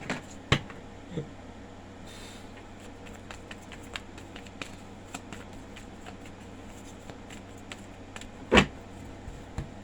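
Tarot cards being handled and set down on a table: scattered light clicks and taps, with a sharper knock about half a second in and a louder one near the end, over a steady low hum.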